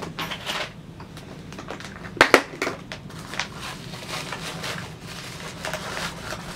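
Small makeup items being handled and moved around on a table: irregular clicks and rustles, with two sharp clicks a little over two seconds in as the loudest.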